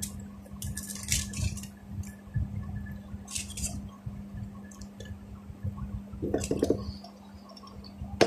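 Foil wrapper crackling as a bar of dark chocolate is handled and a square broken off, in a few short bursts of crinkles about a second in, mid-way and near the end, over low handling rumble.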